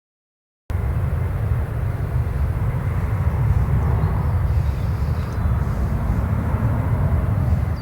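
Steady, loud low rumble of a Boeing 787-9 Dreamliner's jet engines on its arrival, cutting in suddenly about a second in.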